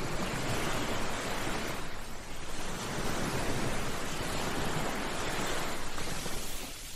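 Ocean surf washing onto a beach: a steady rush of waves that eases briefly about two seconds in and again near the end.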